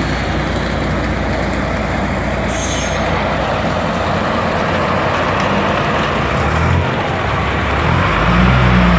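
A heavy truck's diesel engine running steadily on a concrete-pouring site, with a short air hiss about two and a half seconds in and the engine pulling harder near the end.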